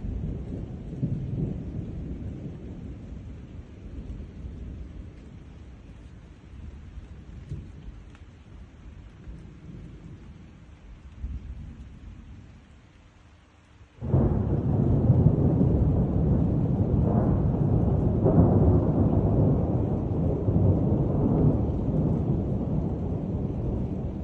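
Thunder rolling in a rainstorm: a low rumble dies away, then a sudden loud clap about two-thirds of the way through breaks into a long, heavy rumble.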